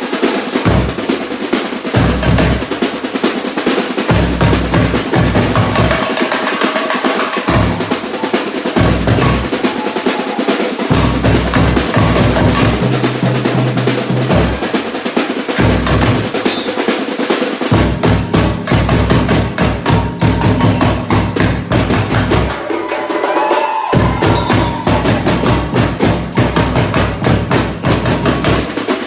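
Samba bateria playing: a dense, fast rhythm of snare drums and other hand percussion, with surdo bass drums coming in and out. The bass drums drop out for about a second roughly three-quarters of the way through, then return.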